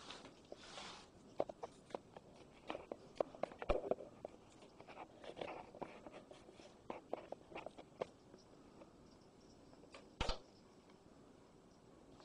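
Handling noise from a handheld camera and things being touched on a table: scattered light clicks, taps and rustles, with one sharper knock about ten seconds in.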